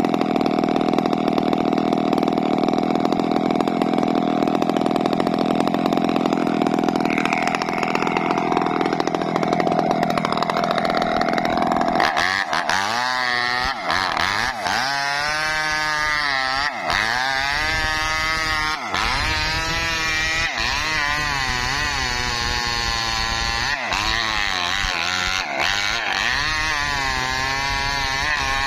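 Petrol two-stroke chainsaw running steadily, then cutting through a felled log from about twelve seconds in: the engine pitch wavers up and down as the chain bites into the wood, with a few brief dips.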